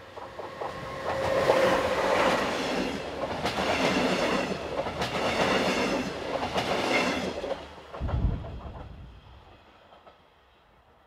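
A passenger train of an electric locomotive and double-deck regional coaches passes at speed: wheels rumbling on the rails with repeated clicks over the joints, swelling over the first couple of seconds and fading away after about eight seconds. A short low thud comes near the end of the pass.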